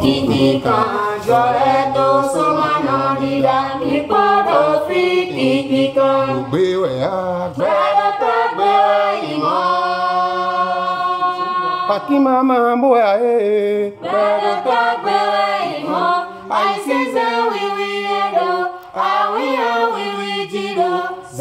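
A small group of women's and a man's voices singing an unaccompanied song together, with a long held note about halfway through.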